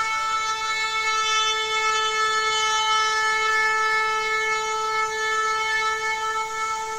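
A trumpet blowing one long, steady held note.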